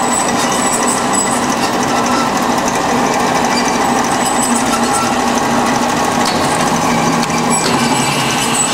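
1979 Kysor Johnson (Amada) HA250 automatic horizontal band saw running steadily in its cut feed cycle, its blade sawing through a workpiece, a dense mechanical noise with steady whines. The sound shifts slightly about seven and a half seconds in.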